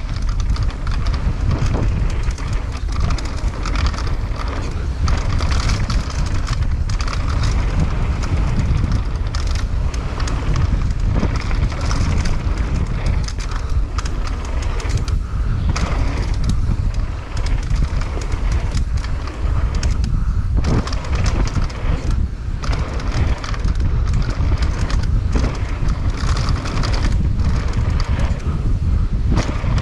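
Mountain bike riding fast down a rough dirt trail: wind buffets the microphone in a constant low rumble, with frequent sharp knocks and rattles from the bike over bumps and roots.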